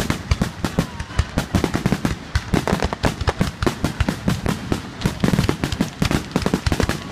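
Fireworks finale: aerial shells bursting in a rapid, unbroken barrage of bangs, several every second.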